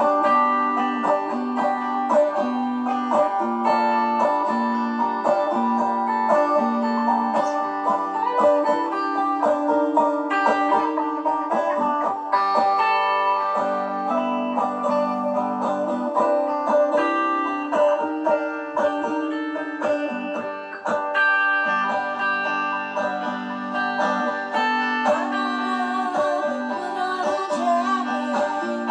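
Electric banjo and electric guitar playing an instrumental tune together: a steady run of picked notes over changing chords.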